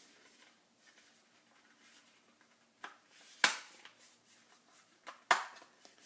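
Plastic clicks as the lid of an Inateck USB 3.0 portable hard drive enclosure is pressed back into place over the drive. Two sharp clicks come about three seconds in and two more near the end, with soft handling noise between.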